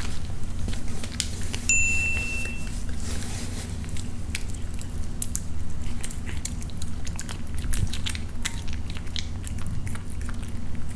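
A cat chewing and biting pieces of raw beef close to the microphone: quick wet clicks and smacks of its mouth throughout. A short clear electronic tone sounds just under two seconds in.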